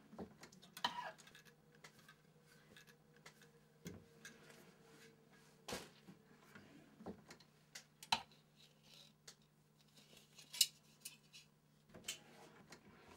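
Scattered light clicks and knocks at irregular intervals, the sharpest about a second in and about two-thirds of the way through, over a steady low hum.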